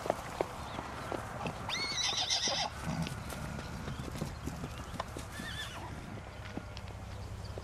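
Lipizzaner horses running as a herd, a scatter of hoofbeats on turf. About two seconds in, one horse gives a loud, high, wavering whinny, and a shorter, fainter whinny follows a few seconds later.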